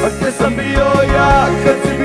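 Live rock band playing with a ska feel: a steady drum-kit beat under electric guitar and other pitched parts.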